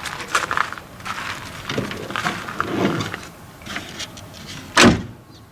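Irregular clicks, knocks and rustling, with one loud thump near the end.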